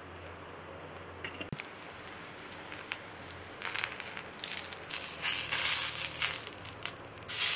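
Egg frying on a cast-iron tawa with a faint crackling sizzle. About halfway through, a wooden spatula scrapes under the egg and flips it, bringing loud bursts of scraping and sizzling.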